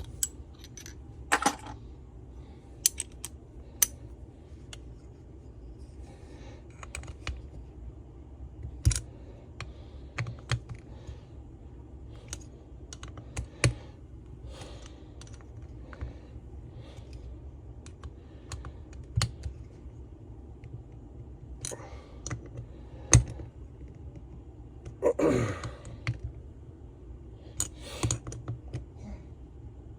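Scattered light metallic clicks and knocks of hand tools and small engine parts being handled during a leaf blower rebuild, over a steady low hum, with a short scraping sound near the end.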